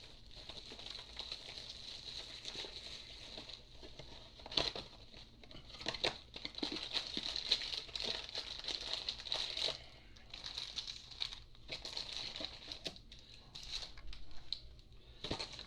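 Plastic wrap on a sealed trading-card box being torn and crinkled as the box is unwrapped and opened, with scattered small clicks and taps of cardboard and card packs being handled.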